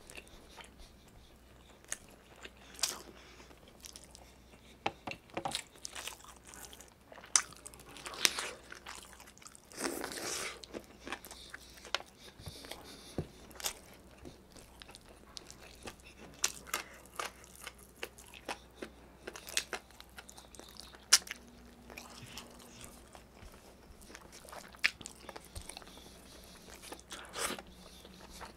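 Close-miked mouth sounds of eating chicken adobo by hand: chewing, wet lip smacks and occasional crunches, mixed with fingertips picking scraps off a tray. They come as scattered sharp clicks and short crackles, the longest about ten seconds in.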